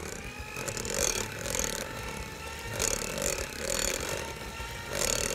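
Electric hand mixer running steadily at speed, its beaters whipping coconut milk into a cake batter in a glass bowl, with a rhythmic swishing about twice a second as the beaters sweep through the batter.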